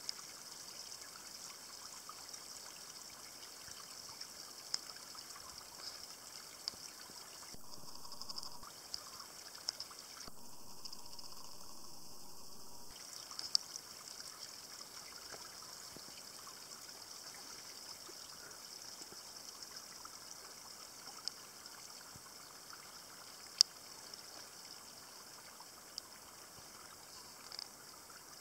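Shallow orange mine-drainage water trickling over rocks and along a channel: a steady, faint trickle. A few sharp clicks break it, the loudest about two-thirds of the way through.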